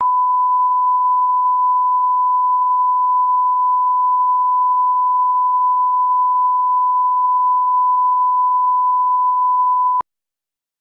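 Line-up reference tone of a bars-and-tone test signal: one steady, pure, unchanging tone that cuts off suddenly about ten seconds in.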